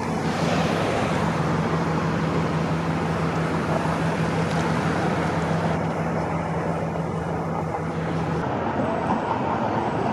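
Steady outdoor traffic noise, with a low steady hum that stops about eight seconds in.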